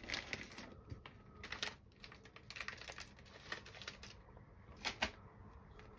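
Hands handling a nylon cable tie and small parts on a workbench: irregular light plastic clicks and rustles, with a sharper click about five seconds in.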